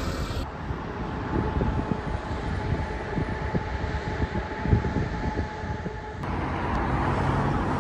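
Traffic noise on a city street: a steady low rumble of passing vehicles with a faint steady whine that stops about six seconds in.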